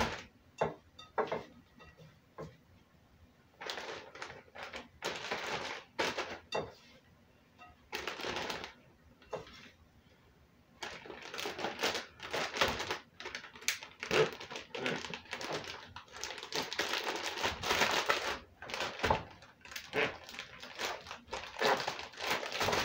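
Plastic zip-top freezer bags crinkling and rustling as they are handled and filled with sliced onions. The rustling comes in short spells at first and runs more continuously in the second half.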